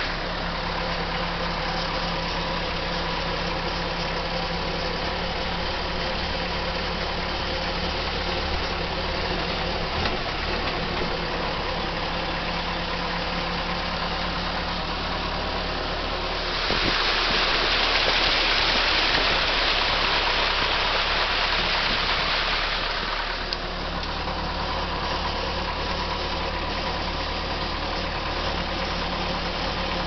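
Land Rover Series I engine idling steadily. From about 16 to 23 seconds in, a louder rushing hiss rises over the engine and then stops.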